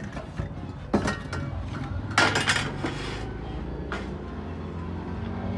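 Metal pots, pans and utensils knocking and clinking as they are handled and set down in a dish rack: a few knocks about a second in, a cluster around two seconds, and another near four seconds.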